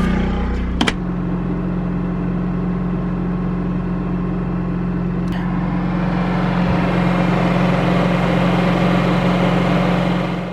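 RV generator running at a steady speed, heard from inside the RV as a constant engine hum, with a sharp click about a second in.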